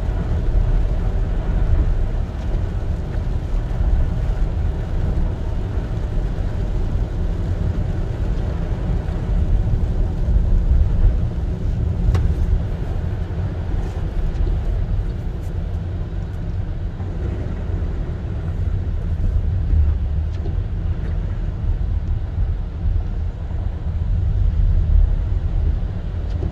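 Car driving on a wet road, heard from inside the cabin: a steady low rumble of engine and tyres with a light hiss above it.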